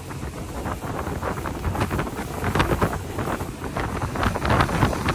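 Wind buffeting the microphone in uneven gusts aboard a motorboat, over a low rush of water and boat noise.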